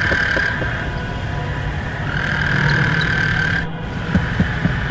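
Experimental noise music: a dense, rough low drone under a steady high whine that breaks off and comes back, then cuts out abruptly with a brief dip near the end.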